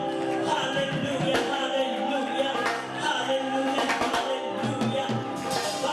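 Gospel praise music with singing and steady drum and percussion hits.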